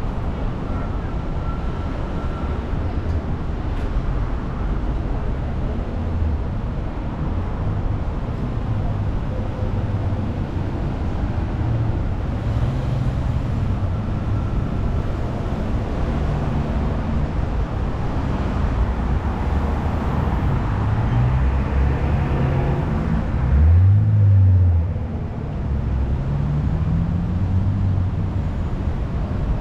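Downtown street traffic: vehicle engines running and passing over a steady low rumble, with engine pitch rising a few times. Late on, a loud low rumble lasts about a second and a half.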